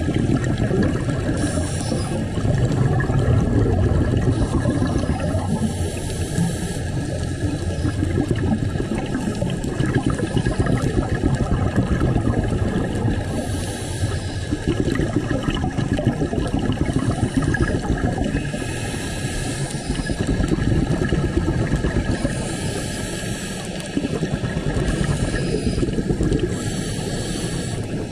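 Muffled rumble of water moving around a camera held underwater, swelling and easing every few seconds.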